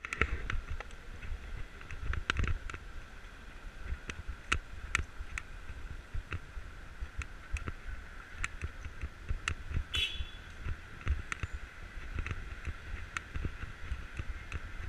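Walking street ambience: a steady low rumble of wind on the microphone, with frequent short clicks and knocks. A brief high squeak comes about ten seconds in.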